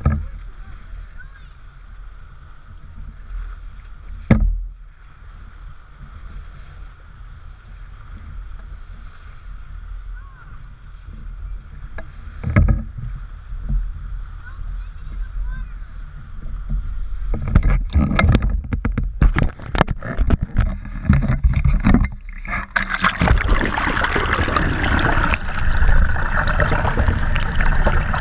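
Low steady rumble of wind and water against a small boat's hull at sea, with a sharp knock about four seconds in and another around twelve seconds. From about two-thirds of the way through, water splashes hard and repeatedly, then gives way to loud rushing, bubbling water as the camera goes under the surface.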